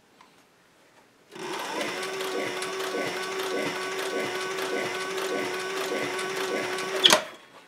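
Industrial leather sewing machine starting about a second in and running steadily, stitch after stitch, as it sews through suede and a synthetic wool lining. It stops near the end with one sharp clack.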